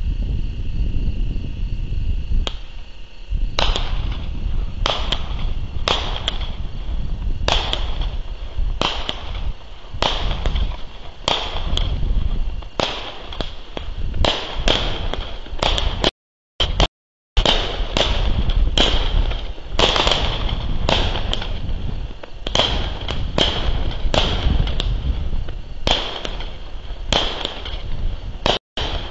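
Fireworks going off: sharp pops repeating about once every second or so, over a steady low rumble. The sound cuts out twice for a moment around the middle.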